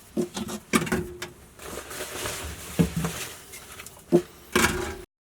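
Short knocks and clicks with soft rustling: provisions being handled and stowed away in the boat's lockers. A louder clatter comes near the end, then the sound cuts off suddenly.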